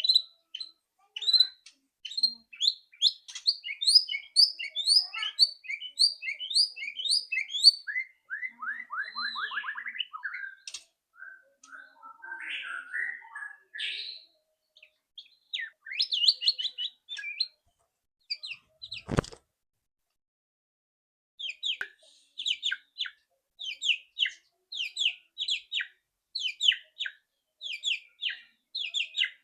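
White-rumped shama (murai batu) singing: fast runs of short repeated high notes and rattling chatter (ketrekan), broken by a pause of a few seconds with a single sharp click about two-thirds of the way through.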